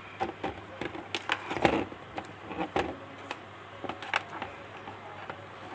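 A loose TV power-supply circuit board being handled and set down on the TV's back panel: irregular clicks and knocks of the board and its wires, the loudest cluster about a second and a half in.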